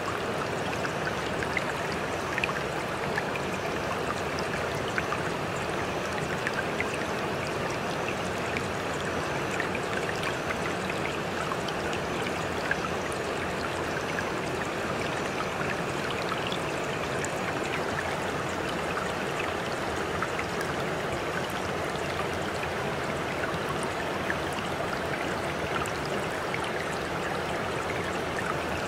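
A stream of running water, with a steady rushing noise and scattered small splashes and drips throughout.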